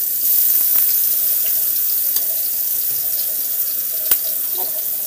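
Ginger-garlic-green-chilli paste sizzling in hot oil with whole spices in a non-stick frying pan: a steady hissing sizzle, with one sharp tick about four seconds in.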